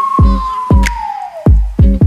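Electronic music with a deep kick drum hitting four times, sharp hi-hat ticks, and a held synth note that bends downward in pitch about halfway through.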